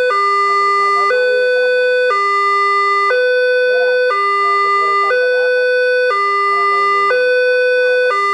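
Electronic two-tone warning alarm of a Multech-model railway level crossing. It alternates steadily between a lower and a higher tone, about once a second each, while the barrier is down: the sign that a train is approaching.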